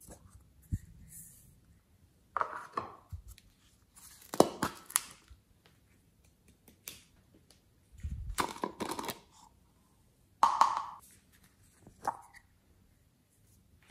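Hollow plastic toy eggs handled and pulled apart in hand, giving short plastic clicks and rattles. Glitter and sequins are tipped out of them in about five separate bursts of sound, with quiet in between.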